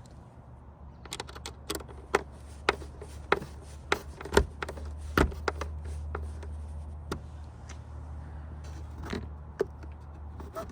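Irregular sharp plastic clicks and taps from hands fitting a turn signal lens into a truck's side mirror housing, over a low steady hum.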